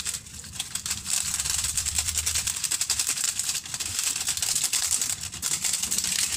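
Granulated Magic Sarap seasoning shaken from a foil sachet onto raw shrimp in a bowl: a dense, fast pattering of granules with the crinkle of the sachet, starting about a second in.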